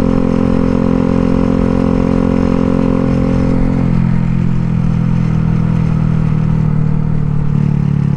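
Cruiser motorcycle engine running under way. Its pitch drops about four seconds in, then holds steady at the lower engine speed.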